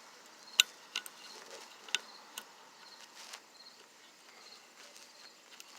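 A few sharp clicks of small metal parts knocking together as a C-clip and the variator parts are worked onto the scooter's shaft by hand, two of them louder than the rest, spread over the first two and a half seconds.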